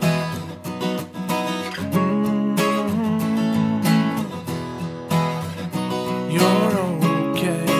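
Background music led by a strummed acoustic guitar, with a steady strumming rhythm.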